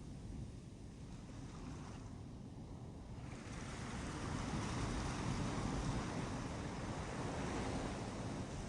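Sea waves on a beach, a steady rushing hiss. A few seconds in, a wave breaks and washes up, and the sound swells and fills out.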